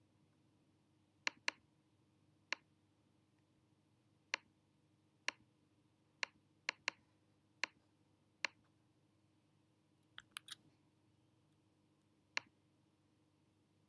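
Sharp, separate clicks of a computer pointing device placing anchor points along a traced shape with Illustrator's curvature tool, about a dozen at an irregular pace with a quick run of three near the end, over a faint steady hum.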